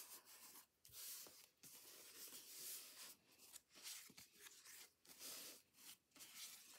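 Faint rubbing and rustling of paper under the hands, in repeated strokes, as a freshly glued sheet of paper is pressed and smoothed onto an index card.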